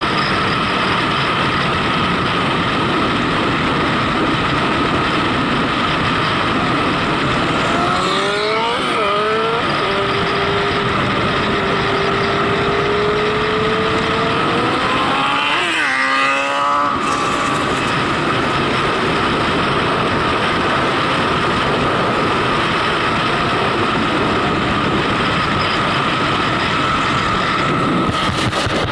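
A motor vehicle on the road, with loud steady wind and road noise. Its engine climbs in pitch and drops back in quick steps, like upshifts through the gears, about eight seconds in and again around sixteen seconds in.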